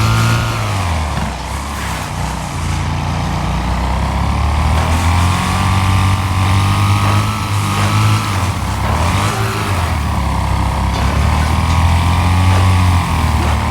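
Ride-on lawnmower engine running loudly, its pitch dipping and climbing again a few times as the speed changes.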